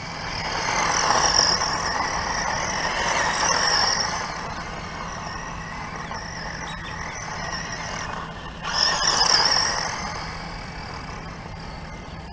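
Tamiya Sand Rover RC buggy's small 380-size electric motor whining high as the buggy speeds off, in two runs: one over the first four seconds, and another, shorter one about nine seconds in, each rising and then fading.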